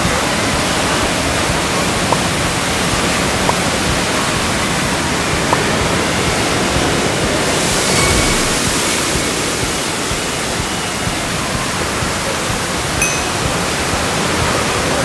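Steady rush of water running and splashing through a water park's play structure, with a heavy crash of water dumping down from above about eight seconds in that lasts a second or two.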